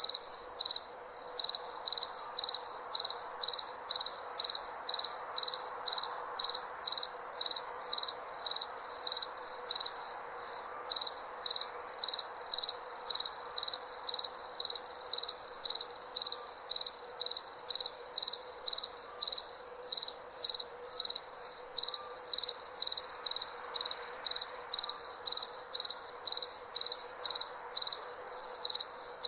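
Cricket chirping steadily in a regular, high-pitched rhythm of about two chirps a second, over a faint steady hum.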